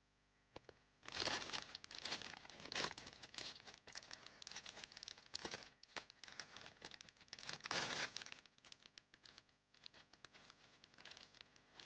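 Crinkly plastic blind-box packaging being handled and torn open, a run of crackling and rustling with louder swells every few seconds.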